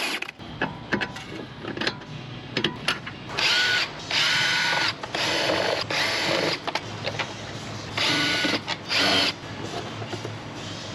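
A powered wrench run in five short bursts of a steady whine while loosening front suspension fasteners to free the spindle for the air strut's removal. Sharp metal clinks of tools and parts come between the bursts.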